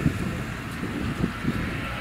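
Outdoor background noise: wind buffeting the microphone in uneven low gusts over a steady hiss.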